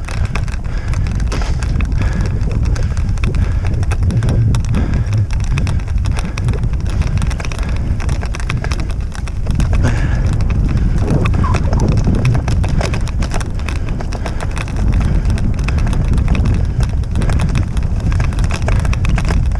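A wheeled dryland dog rig rattling and jolting over a rough grass track at speed as two huskies pull it, with steady wind rumble on the head-mounted camera's microphone.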